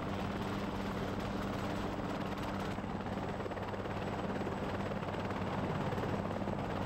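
Helicopter running steadily: rapid rotor-blade chop over a steady turbine hum.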